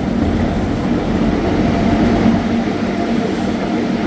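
Miniature scenic train running steadily along its track, heard from aboard a carriage: a continuous low running noise of the wheels and carriages.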